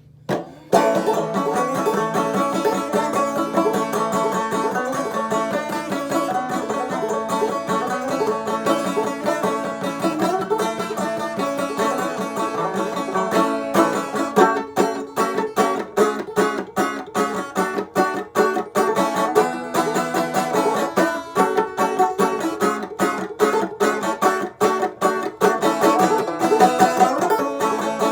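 Banjo played clawhammer style: a fast, rhythmic melody of plucked notes and brushed strums that starts just under a second in.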